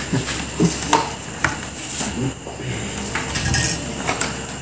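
Light clinks and taps of small hard objects being handled, a handful of separate sharp clicks spread through.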